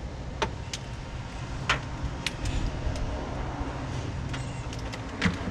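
A handful of sharp clicks and light knocks from tools and test leads being handled, over a steady low rumble.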